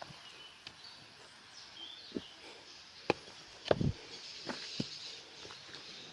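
Outdoor ambience of short bird chirps over a steady high insect hum, with scattered light knocks and one louder thump a little past halfway.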